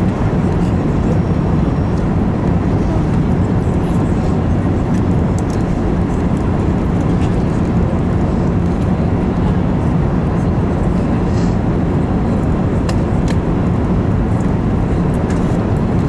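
Steady cabin noise inside an Airbus A380 in flight on approach: the even rumble of engines and airflow, with a low hum and a few faint clicks.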